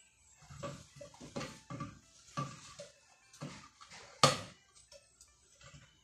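Hands handling a Bluetooth speaker's circuit board and cylindrical casing: a string of irregular knocks, scrapes and rattles, with one sharp, loudest knock about four seconds in.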